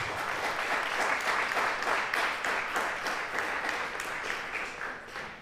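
Audience applauding, a dense patter of clapping that fades away near the end.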